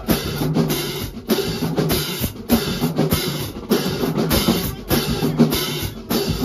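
Marching drumline playing a funk cadence: snare drums, bass drums and clashed hand cymbals in a driving rhythm, with repeated cymbal crashes.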